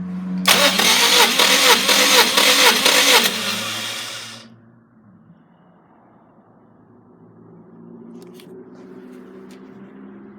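Subaru EJ205 2.0-litre turbocharged flat-four engine running loud, its pitch wavering up and down, for about three seconds. It then cuts off, leaving a faint low hum and a few light clicks near the end.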